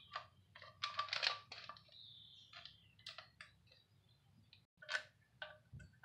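Light metallic clicks and a short scrape as a timing chain guide and its bolt are fitted by hand on the front of a 2.2 L Ecotec engine. There is a quick cluster of clicks about a second in and a sharper click near the end.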